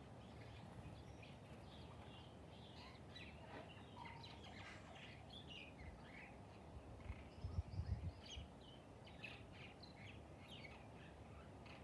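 Birds chirping, many short calls scattered throughout, over a faint steady low background hum. About seven seconds in, a brief low rumble rises to the loudest point and dies away within about a second and a half.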